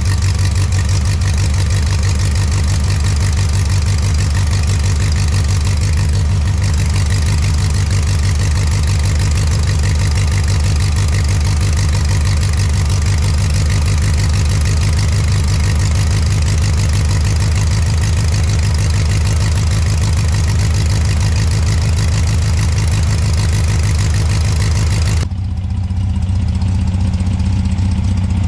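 Air-cooled flat-four engine from a 1968 VW Beetle idling steadily as it warms up after a carburettor clean, new points and a valve adjustment. About 25 seconds in, the sound turns abruptly duller, but the engine keeps running.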